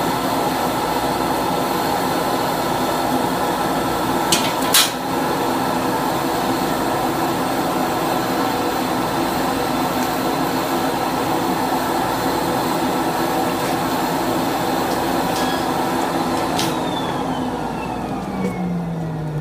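Suction vacuum motor running steadily, then switched off about seventeen seconds in and winding down with a falling whine. Two sharp clicks about four and five seconds in.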